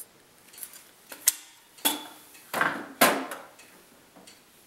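A metal putty knife and a tube of construction adhesive being handled: four short clinks and scrapes about half a second apart, between about one and three seconds in.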